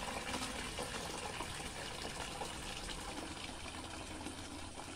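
Hot cooking water from a pot of boiled taro pouring in a steady stream into a plastic bucket, the splashing fill growing a little quieter toward the end.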